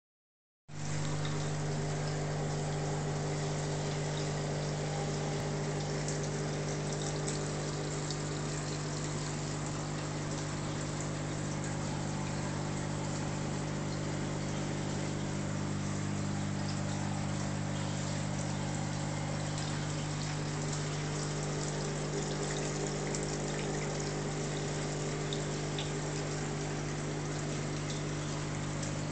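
Aquarium pump running with a steady low hum, over an even hiss of moving water.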